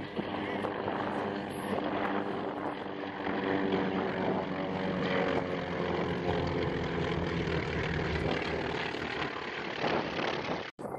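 Engines of two propeller planes droning steadily as they make a low formation pass, growing louder about a third of the way in and holding before the sound cuts off near the end.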